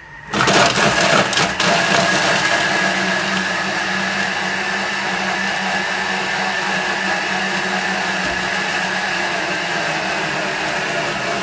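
Thermomix blade spinning at speed 8, chopping a partly frozen chicken breast into mince. For the first second or so frozen chunks clatter against the blade, then it settles into a steady even whir as the meat turns to mince.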